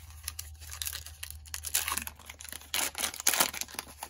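Crinkly plastic wrapper of a Topps baseball card pack being torn open and crumpled by hand, a run of crackles that is loudest about two and three seconds in.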